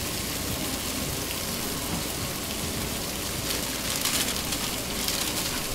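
Steady sizzling of chicken frying on a flat-top griddle, briefly louder about four seconds in.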